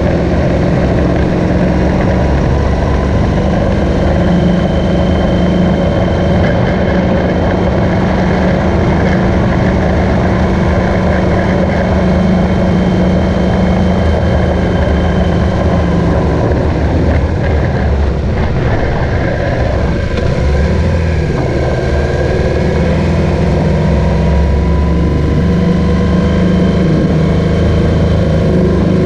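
BMW R1200GS boxer-twin engine running at road speed under road and wind noise, heard from on the bike. The engine note changes around two-thirds of the way through, then settles again.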